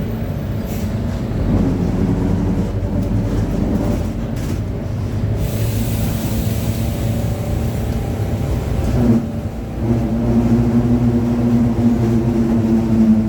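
Mercedes-Benz OF-1721 city bus heard from inside, the engine running under way and the rear differential growling, the fault the recording is about. A few seconds of hiss pass midway; about nine seconds in the sound dips briefly, then a strong steady whine comes in as it pulls again.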